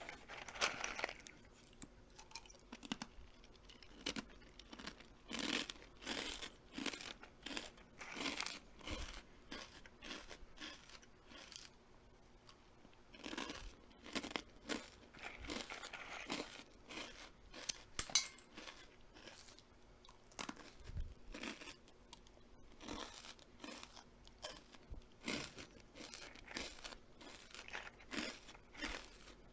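Close-up eating sounds: irregular crunching and tearing bites with chewing, coming in clusters separated by short quieter pauses.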